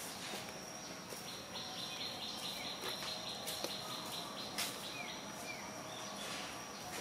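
Outdoor insect and bird ambience: a steady high insect tone, a rapid pulsed trill for about three seconds, and two short falling bird chirps past the middle, with scattered faint ticks and rustles.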